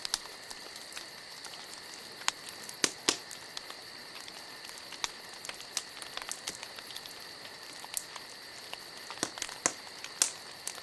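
Irregular crackling: scattered sharp pops and snaps at uneven intervals over a steady faint hiss, like a crackling fire.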